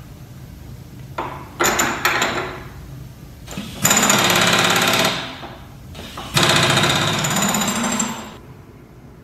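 Kurt automatic power drawbar on a Clausing Kondia FV-300 CNC mill hammering in rapid impacts as it works the tool holder in the NMTB 40 spindle. A few short bursts come first, then two longer runs of about a second and a half each.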